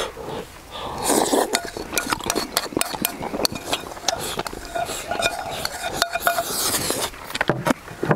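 Chopsticks clicking and clinking against ceramic rice bowls, many quick separate taps, with noisy eating sounds from bowls held to the mouth.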